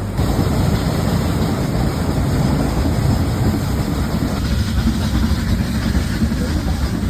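Nilgiri Mountain Railway train running on the line, a steady loud rumble of the carriages on the track.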